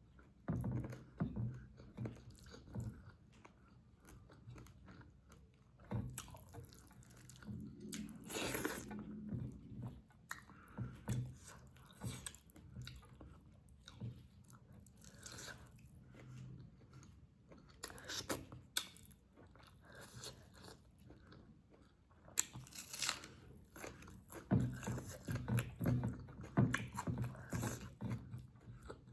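Close-miked chewing and biting of a person eating chicken with gravy and rice: irregular smacks and clicks of the mouth, coming thicker in stretches, busiest near the end.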